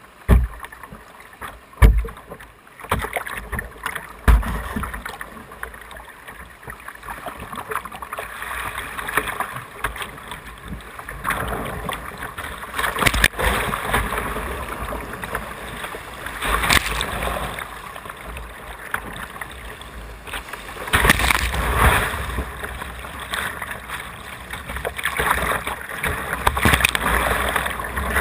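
Whitewater rushing and splashing around the bow of a plastic kayak running a rapid, with a few sudden low thumps in the first few seconds and louder surges of splashing about two-thirds of the way through and near the end.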